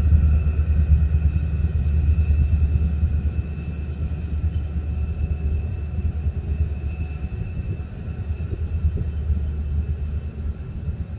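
DSB ME-class diesel locomotive's EMD 16-645 two-stroke V16 engine running with a deep, steady rumble that gradually fades as the train moves off.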